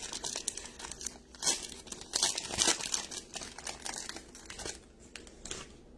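Foil wrapper of a Bowman Baseball hobby pack being torn open and crinkled: a dense crackle with the loudest rips a second and a half to three seconds in, dying away near the end.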